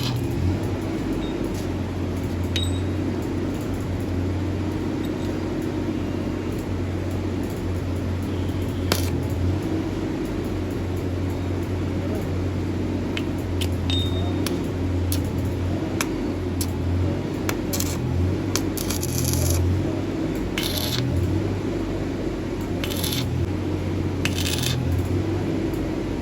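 Toyota Corolla Altis engine idling steadily, with scattered light metallic clicks and clinks over it.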